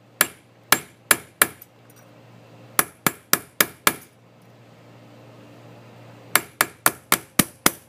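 A ball peen hammer taps a steel punch held against a brass hinge on a vise's anvil face, stippling the brass with punch marks. The sharp, ringing metallic taps come in three quick runs of four, five and six, with short pauses between.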